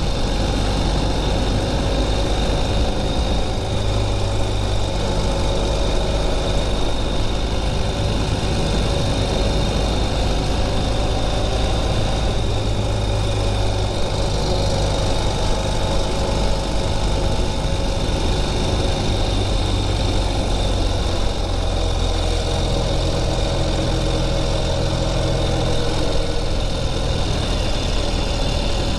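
A Ural Gear Up sidecar motorcycle's air-cooled flat-twin engine running steadily while cruising, with a constant rush of wind and road noise over it. The engine note shifts slightly a few seconds in and again about two-thirds of the way through.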